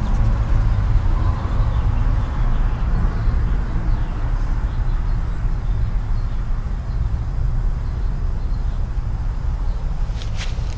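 Steady low outdoor rumble, with a couple of brief clicks near the end.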